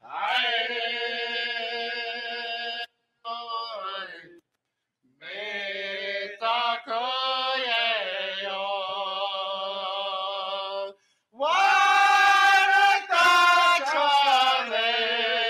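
A Lakota drum group's singers chanting together in long held notes that slide down at the ends of phrases, with short breaks between phrases; the singing grows louder in the last few seconds.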